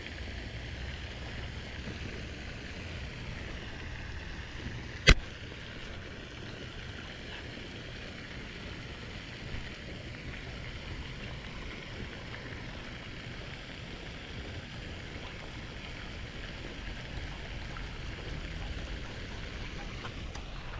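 Steady outdoor ambience: a low wind rumble on the microphone with a faint hiss above it. A single sharp click about five seconds in.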